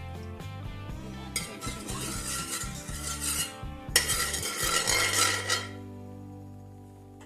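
A metal spoon scraping and stirring in a cooking pan as oil goes in, in two bursts of about two seconds each, over steady background music that fades near the end.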